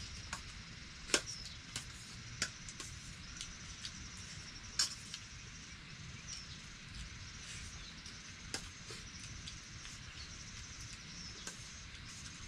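Rural background sound: a steady high chirring like insects over a low rumble, with sharp clicks and taps scattered through, the loudest a little past one second and near five seconds in.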